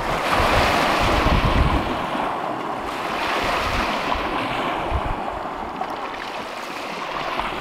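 Wind-driven lake waves breaking and washing up a concrete boat ramp, a rushing wash that surges near the start and again about halfway through. Strong wind buffets the microphone in gusts underneath.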